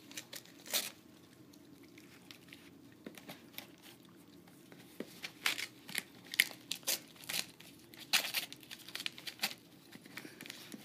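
A dog tearing and crinkling wrapping paper off a cardboard gift box, in short irregular rips: a few at first, then many in quick succession in the second half.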